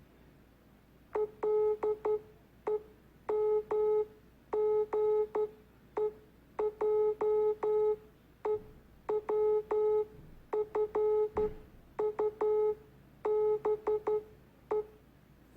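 Morse code sent as an electronic beep of one steady mid pitch: short dots and longer dashes in groups, with pauses between characters. It starts about a second in and stops shortly before the end.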